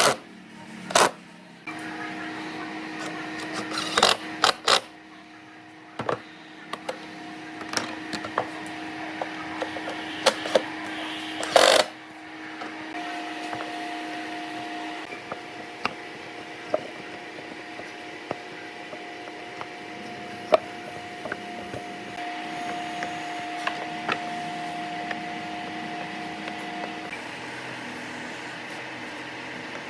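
Scattered knocks and clicks of wood and hand tools being handled, with a few heavier knocks in the first half, over a steady low hum that shifts in pitch partway through.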